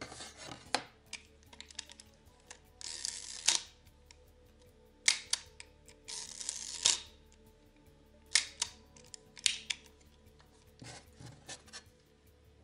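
Hasselblad SWC camera being worked by hand: its metal dark slide scrapes in and out of the 120 film back three times, between sharp mechanical clicks of the winding knob and shutter, over quiet background music.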